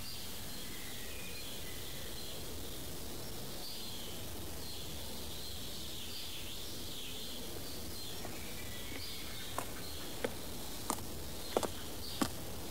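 Outdoor sound-effect ambience: a steady hiss with faint high chirping, as of insects. About ten seconds in, footsteps on a hard surface begin, roughly one step every two-thirds of a second.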